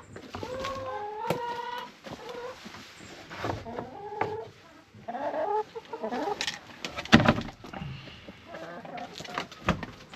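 Chickens clucking and calling in short pitched phrases, with a few sharp knocks; the loudest knock comes about seven seconds in.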